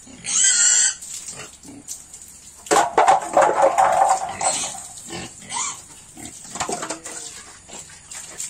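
Pig vocalising: a short high squeal near the start, then a longer, louder harsh squeal about three seconds in, with quieter grunts in between.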